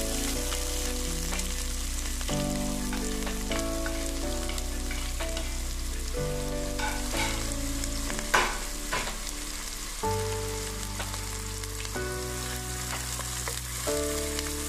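Chopped onions sizzling as they fry in hot oil with mustard seeds in a nonstick pan, stirred now and then with a wooden spatula, with a sharp knock about eight seconds in.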